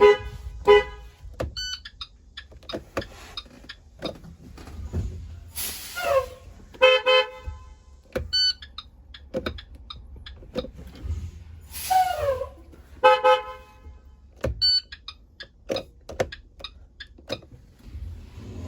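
School bus electric horn tooting in short blasts: two quick toots at the start, then two more bursts of toots about six seconds apart. Each burst is preceded by a hiss with a falling tone.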